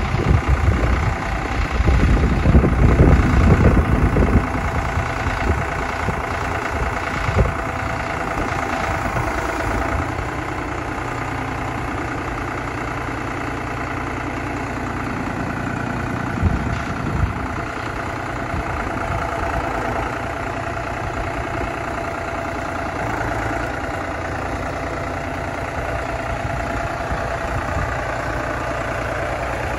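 New Holland TN75DA tractor's diesel engine running steadily while the front loader is worked and the tractor is driven, louder and rougher with a low rumble for the first few seconds.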